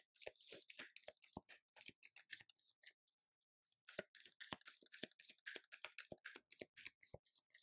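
A tarot deck being shuffled by hand: a faint, rapid run of soft card flicks and slaps, pausing briefly about three seconds in, then going on.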